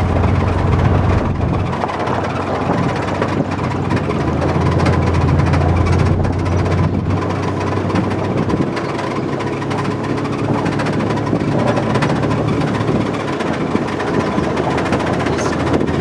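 Vehicle driving on a gravel road: a steady low engine hum under continuous rumbling tyre and road noise.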